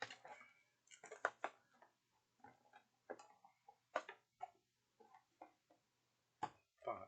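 Soft, irregular handling noises, about a dozen short taps and rustles, as paper and game components from the box are moved about.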